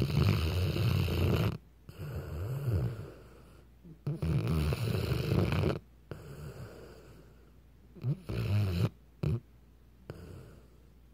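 Weimaraner dog snoring loudly in its sleep: three low snores about four seconds apart, each followed by a softer breath.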